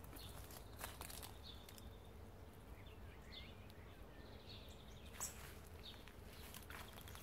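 Quiet garden ambience with faint bird chirps and a couple of short trills, and a few soft clicks and rustles.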